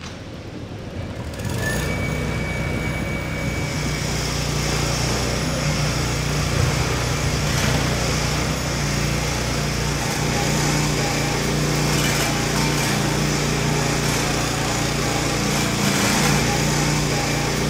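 Small gas engine of a walk-behind concrete saw running steadily while its blade cuts control joints in a fresh concrete slab, with a high hiss over a steady engine hum. The sound comes up about a second and a half in.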